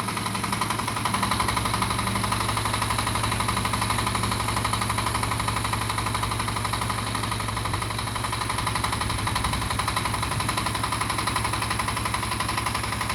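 A 35 HP mini tractor's engine running steadily with a fast, even clatter.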